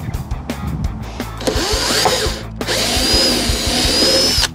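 Cordless drill with a step drill bit boring through the plastic wall of a water butt. It runs in two goes: a short one about a second and a half in, then a longer steady whine from just before three seconds that stops near the end.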